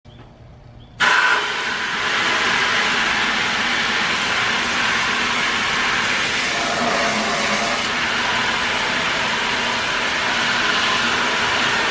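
Pressure washer running, its wand spraying a stream of water into a plastic bucket of degreaser concentrate. The sound starts suddenly about a second in and then runs steadily.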